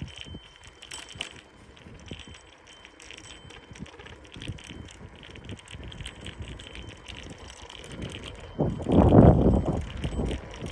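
Bicycle rolling over a rough, cracked paved path, the bike rattling and ticking as it jolts along. About eight and a half seconds in, wind buffets the microphone for a couple of seconds, the loudest part.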